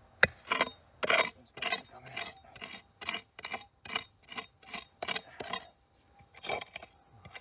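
A hand digging tool scraping and chipping into hard, stony ground in even strokes, about two a second, while digging out a metal-detector target; the strokes stop about five and a half seconds in, with one more near the end.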